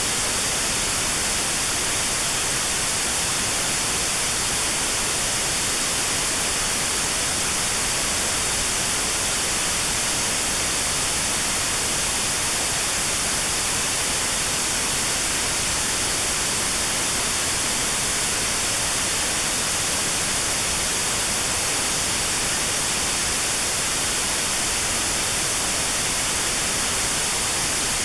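Steady white noise hiss with a narrow band around 4 kHz cut out: notched noise for tinnitus sound therapy.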